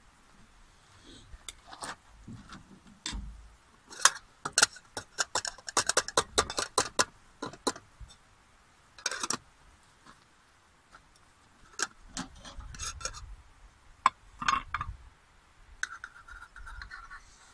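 Metal utensils and a lid clinking and scraping against metal camping pots as food is dished up: a dense run of quick taps about four to eight seconds in, then scattered clinks.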